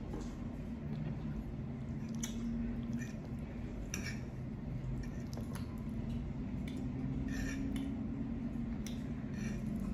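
A metal fork clinking and scraping as noodles are twirled, with soft squishy sounds of noodles being handled, a few short sharp ticks spread through, over a steady low hum.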